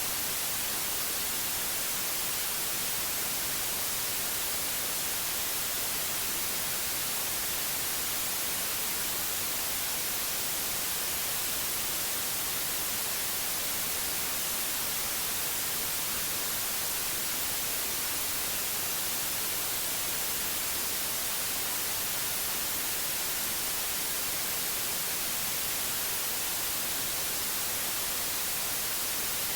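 Steady white noise: an even hiss, brightest in the high frequencies, unchanging throughout.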